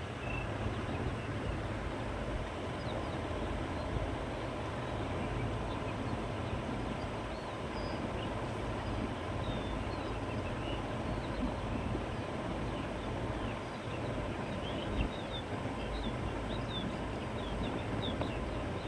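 Steady wind blowing across open countryside, with a low rumble, and small birds chirping faintly and intermittently, more often in the second half.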